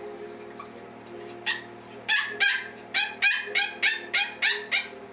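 West Highland White Terrier puppy yapping: about ten short, high-pitched yips in quick succession, roughly three a second, starting about a second and a half in.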